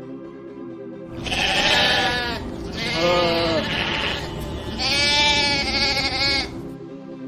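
Three long sheep bleats, one after another, over background music.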